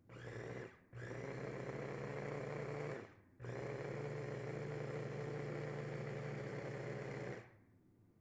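Electric mini food chopper grinding fresh jute mallow leaves, switched on in three pulses: a short burst, then about two seconds, then about four seconds of steady motor whine, stopping shortly before the end.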